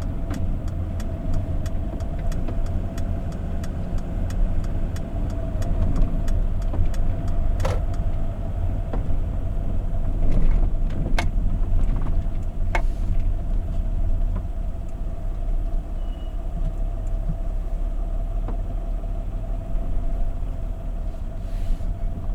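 Diesel engine of a refrigerated van running at low speed, heard from inside the cab, a steady low rumble with a constant hum. A fast regular ticking sounds for the first few seconds, and a few sharp clicks or knocks come about 8, 11 and 13 seconds in.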